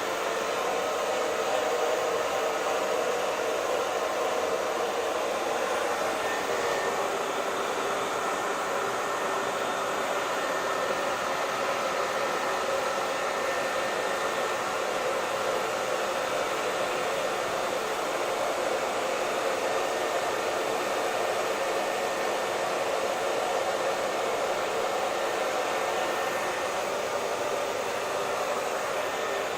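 Hair dryer running steadily, blowing air with a constant whooshing noise and a faint steady whine from its motor.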